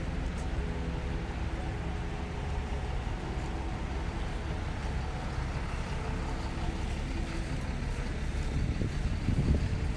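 Steady low rumble of city street traffic, with a brief swell near the end.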